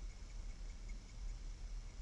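Faint low rumble and steady hiss picked up by the eagle nest camera's microphone, with a faint high pulsing tone repeating evenly.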